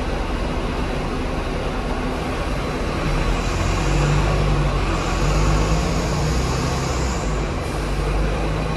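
Hong Kong double-decker tram with VVVF traction running on its street track: a steady rumble of wheels on rail with a low hum, growing louder about three seconds in.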